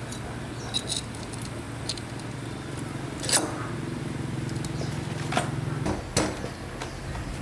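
Scattered light clicks and taps, about six in all, over a steady low hum.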